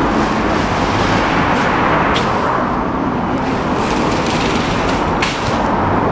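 Yamaha VMAX 1700's V4 engine idling steadily through an SP Tadao slip-on exhaust.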